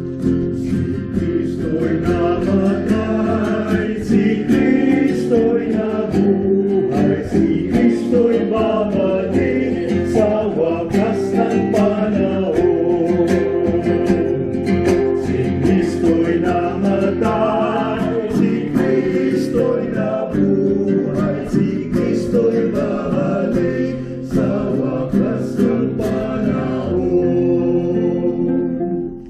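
Acoustic guitar strummed in a steady rhythm with a small group singing a hymn; the music stops near the end.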